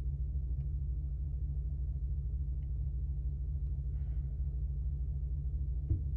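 A vehicle engine idling, a steady low rumble heard from inside the cabin, with one soft knock near the end.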